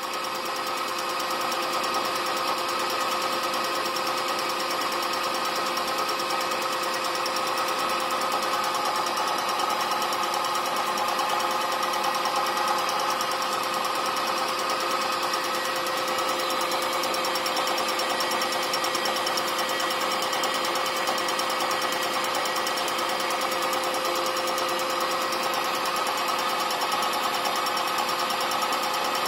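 Milling machine running with a homemade fly cutter in the spindle, facing an aluminium block. A steady mechanical hum with a higher whine builds in the first second, then holds even.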